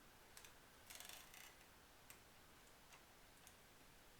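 Near silence with faint, scattered small clicks and ticks, a short cluster of them about a second in: a guitar string and Bigsby vibrato hardware being handled during restringing.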